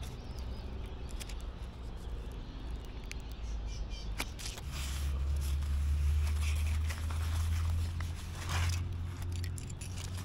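Low engine drone of a motor vehicle, growing louder about halfway through and fading again near the end, with a few small clicks and knocks.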